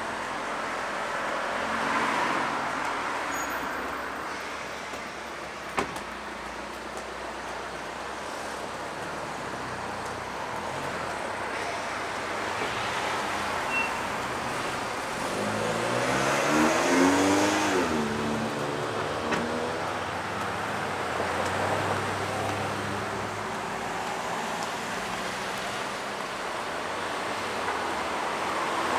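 Street traffic: cars passing at moderate level. About halfway through, one passes close by, its engine note rising and then dropping as it goes. A single sharp click sounds a few seconds in.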